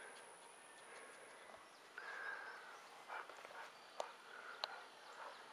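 Near silence: faint outdoor ambience, with two soft clicks about four seconds in.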